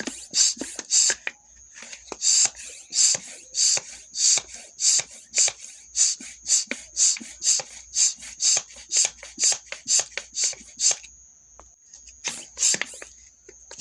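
Bicycle pump worked in quick strokes, each stroke a sharp puff of air, about two a second. It pauses twice briefly, leaving a faint high whistle.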